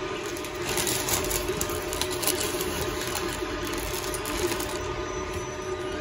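A 3D printer running in the background, a steady mechanical hum of its motors, with light metallic clicks and rustles from capacitor plates, spacers and a plastic bag being handled, busiest in the first half.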